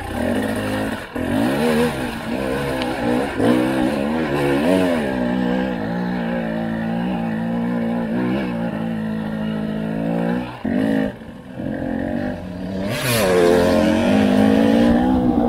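Husqvarna TE300i two-stroke enduro motorcycle engine revving up and down under constant throttle changes while riding a rough trail, its pitch rising and falling again and again, with brief drops off the throttle about a second in, near eleven seconds and near thirteen seconds.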